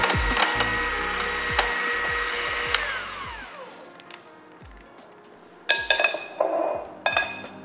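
KitchenAid electric hand mixer running with its beaters in a glass bowl of batter, then switched off about three seconds in, its whine falling away. A few seconds later a metal sieve clinks sharply several times against a glass bowl. Background music with a steady beat plays underneath.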